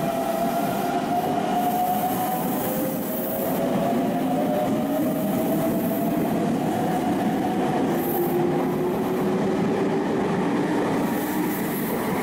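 Red Meitetsu electric train pulling out of the platform and gathering speed. Its motors give a drawn-out whine that rises in pitch over steady wheel-on-rail noise, until the last car passes near the end.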